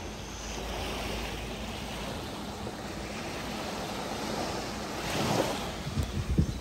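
Sea surf washing onto a beach, swelling louder about five seconds in as a wave comes in. A few short, low thumps near the end are the loudest sound.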